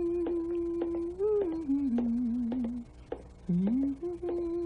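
A young woman humming a slow, wordless tune in two phrases, with a short break about three seconds in, over light, regular footsteps.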